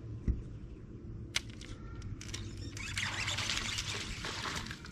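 A hooked small bass being reeled to the boat. It splashes and thrashes at the water's surface for about two seconds near the end, after a few sharp clicks.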